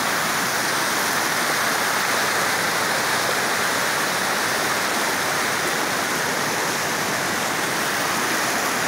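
Floodwater from a full, overflowing reservoir rushing over its spillway in churning rapids, a steady unbroken rush of water.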